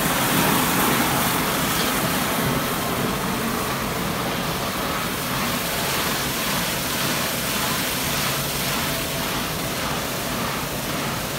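Electric drum mixer running steadily, its motor turning a vertical steel shaft that stirs liquid in a plastic drum.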